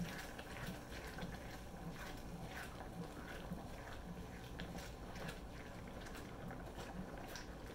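Wooden spatula stirring and scraping food around in a wok: soft, irregular scrapes and light taps against the pan.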